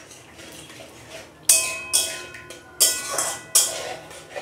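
Metal spatula stirring masala in a metal kadai, knocking against the pan four times in the second half, each clang ringing briefly.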